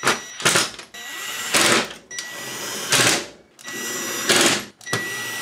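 Cordless drill-driver driving screws into a VCR chassis: its motor whines in several short runs, broken by about five louder, brief bursts of noise.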